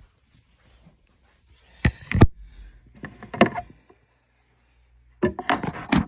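Handling noise from the recording phone being moved and covered: two sharp knocks about two seconds in, some rustling, then a burst of bumping and rubbing near the end.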